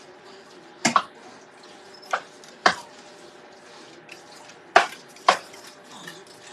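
A spoon stirring a saucy pasta-and-chicken mixture in a pot, knocking against the pot's side about six times, two knocks close together about a second in, the rest spread out.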